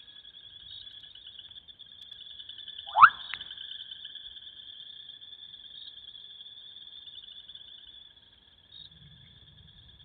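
Bubbling kassina frog giving one loud, short, upward-sliding 'bloop' call about three seconds in. A steady, high, rapidly pulsing chorus of frogs or insects trills throughout and dips briefly near the end.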